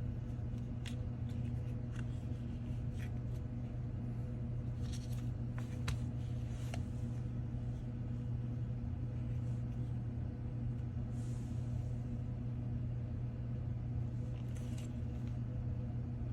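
Steady low hum with scattered small clicks and scrapes of a tool prying at a phone's heat-softened back glass.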